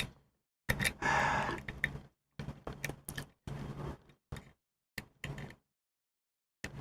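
Lock pick and tension wrench working in a small Ilco mortise lock cylinder: scattered light metallic clicks and taps of the pick against the pins, with a longer scraping or breathy stretch about a second in.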